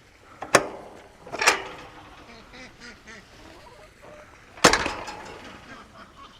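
Ducks quacking, with two sharp knocks, one about half a second in and a louder one near the end.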